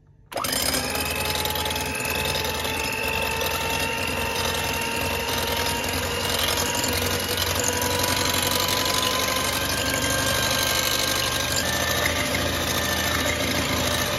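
Philips electric hand mixer switched on just after the start and running steadily with a motor whine, its beaters whisking raw egg whites in a glass bowl until they froth, the first stage of a meringue.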